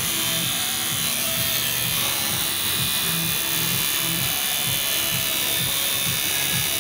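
Background music, with the electric buzz of a tattoo machine at work beneath it.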